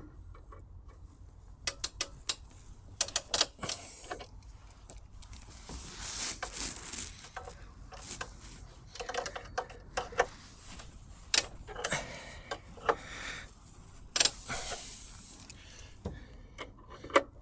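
Wrench tightening the axle nuts on an e-bike's rear wheel: scattered sharp metallic clicks and clinks with several short rasping stretches.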